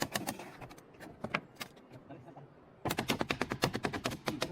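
Hammer driving nails into wooden boards: a few scattered blows, then a fast run of quick strikes, about eight a second, over the last second and a half.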